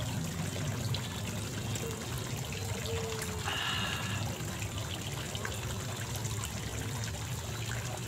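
Running water trickling steadily.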